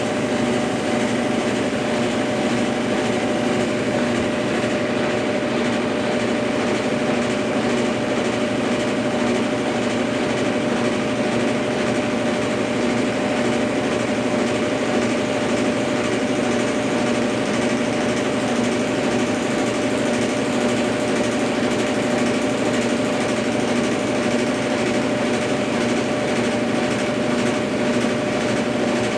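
Consul Facilite 10 kg washing machine running in its spin cycle: a steady motor whir with a constant whine, holding an even level throughout.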